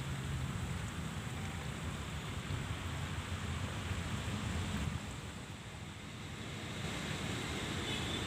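Road traffic going by: a steady rush with a low rumble that eases off about five seconds in and builds again a couple of seconds later.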